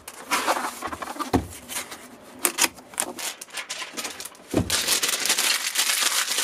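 Handling noises: light clicks and knocks of a plastic clock case being moved and set down on a table, with rustling of packaging. The rustling grows busier about three-quarters of the way through.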